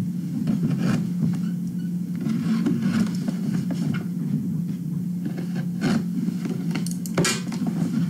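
Steady low hum, with scattered rustles and light knocks from a small cardboard box being handled and opened.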